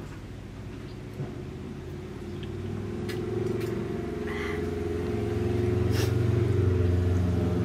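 A motor vehicle engine running with a steady low hum that grows louder over several seconds. There is a sharp click about six seconds in.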